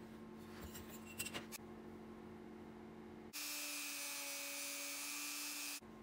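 A few light scratches and taps, then from about three seconds in a handheld rotary tool with a burnishing bit runs steadily against the edge of a 5 oz leather pocket, a steady whine with a bright hiss of the leather rubbing on the bit. It cuts off abruptly shortly before the end.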